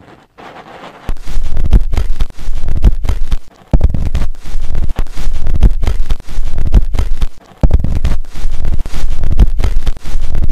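Cotton swab rubbing and scraping in the ear, heard very close up: loud, rough, rumbling scratching in strokes with short breaks, starting about a second in.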